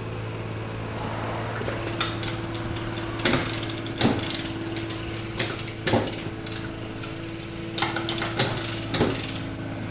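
Hand tools clinking and knocking against metal car parts, in a scatter of separate sharp knocks, over a steady low hum.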